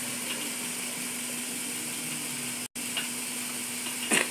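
Steady hiss and low hum, with one short metallic clink near the end from a tool on the car's front steering linkage during a manual toe adjustment. The sound drops out for a moment a little after halfway.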